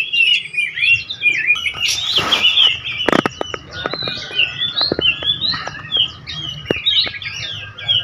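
Many small caged songbirds chirping and twittering at once, a dense chorus of quick, high calls overlapping one another. A brief rushing noise about two seconds in, then several sharp knocks.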